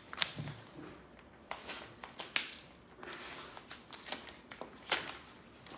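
Brown kraft-paper gift wrapping rustling and crinkling in short, scattered crackles as a package is handled and unwrapped.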